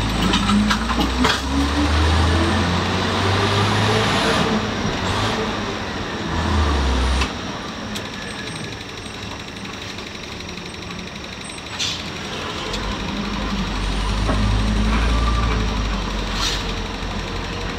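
City bus heard from inside the cabin while under way. Over the engine's low rumble, a whine rises in pitch through the first few seconds as the bus accelerates. The rumble drops off suddenly about seven seconds in and builds again later, with a few short, sharp sounds in between.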